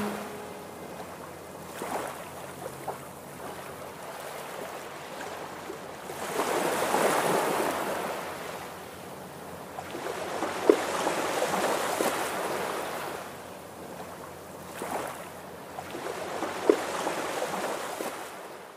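Small sea waves washing in over shoreline rocks, swelling and ebbing every few seconds, with two sharp splashes.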